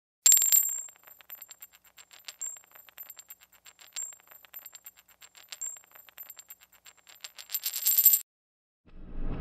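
A metal cylinder striking a hard floor with a ringing clink, then rolling with a long run of light rattling ticks over a faint high ring. The ticks quicken into a fast rattle near the end as it settles, then stop suddenly.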